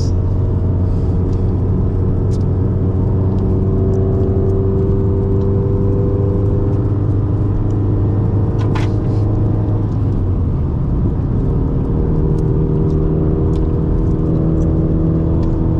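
Inside the cabin of a 2004 Subaru WRX on the move: its turbocharged flat-four engine and road noise drone steadily, the engine note shifting lower about ten seconds in. A single sharp click comes a little before that.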